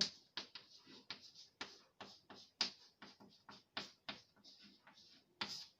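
Pen writing on paper: a faint run of short, irregular scratching strokes, a few of them drawn out into a brief hiss.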